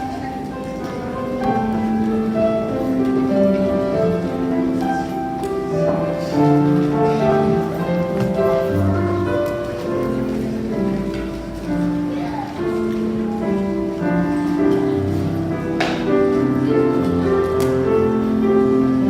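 Instrumental music: a slow melody of held notes over a low accompaniment.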